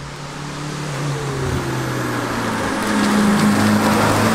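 Compound twin-turbo 2.0 L TDI diesel engine of a VW Beetle race car driving up the road, its note growing steadily louder over the first three seconds as the car approaches, then holding as it passes.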